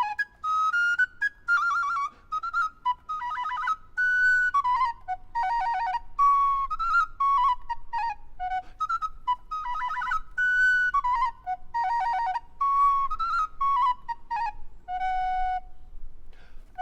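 Solo recorder playing quick, bird-like phrases: short repeated notes and rapid trills around a few pitches, broken by brief pauses.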